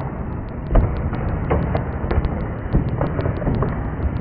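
The trailing-link landing gear of an RC jet model rolling and rattling on a tabletop after a drop test. There is a steady rolling noise with several light knocks.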